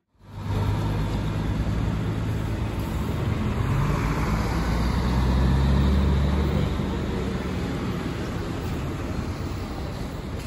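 Road traffic with city buses running: a steady low engine rumble that swells about halfway through and eases off near the end.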